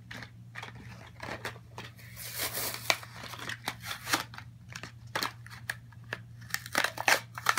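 A toy train's cardboard-and-plastic blister pack being pulled and torn open: a run of sharp crackles and snaps from the plastic and card, with a longer tearing stretch about two seconds in and more crinkling near the end.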